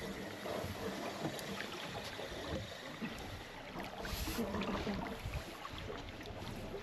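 Wind buffeting the microphone and water moving around a small boat on a river, with a few light clicks and knocks and a brief hiss about four seconds in.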